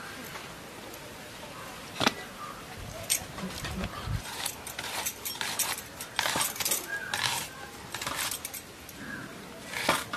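Bangles jingling and a boti blade cutting through a tomato and then an onion, heard as scattered clicks and short taps, with a sharp click about two seconds in.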